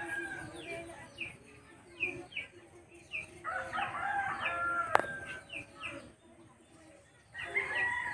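A rooster crowing: one long call about three seconds in, with a sharp click near its end, and another crow starting near the end. Short falling bird chirps repeat about twice a second throughout.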